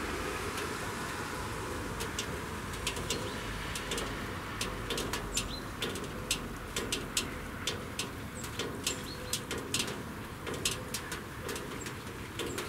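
Birds calling outdoors with short high chirps over a steady background hum. Irregular sharp clicks or taps begin about two seconds in and come more often after a few seconds.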